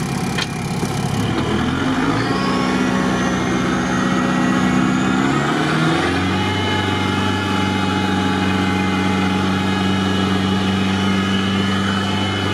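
Off-road 4x4's engine heard from inside the cab, running steadily at low speed while crawling through muddy ruts; its pitch steps up about two seconds in and again about six seconds in, and a faint high whine rises in between.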